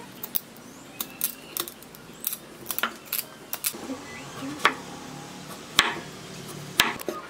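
Meat cleaver chopping pumpkin on a round wooden chopping block: irregular sharp knocks of the blade striking the wood, with the loudest few strikes in the second half.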